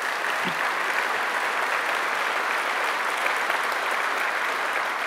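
Large audience applauding, a steady, even clapping throughout.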